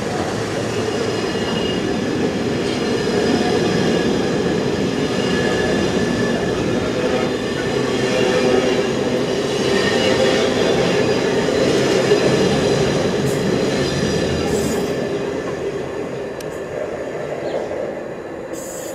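Intermodal container wagons of a freight train rolling past on the rails, a steady rumble with thin high tones from the running gear. The sound fades near the end as the last wagon goes by.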